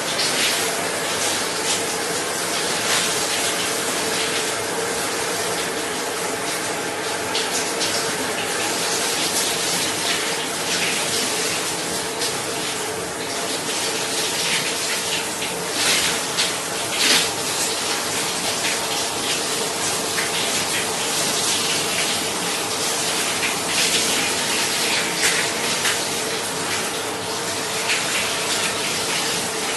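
Shower water running steadily and spraying, with a few louder splashes about sixteen and seventeen seconds in.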